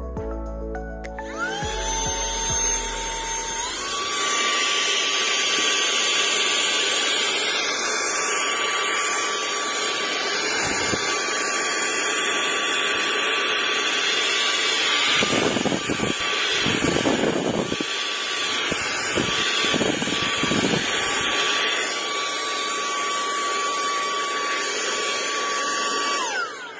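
Cordless handheld car vacuum's small motor spinning up with a rising whine about a second in, then stepping up to its higher speed. It runs steady with a few uneven rushes of air in the middle, and winds down just before the end.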